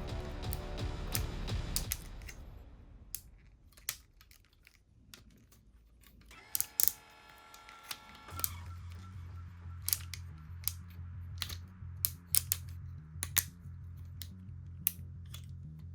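Irregular sharp plastic clicks and snaps as the parts of a transforming toy robot vehicle are folded and locked into place, over background music with a steady low bass from about halfway through.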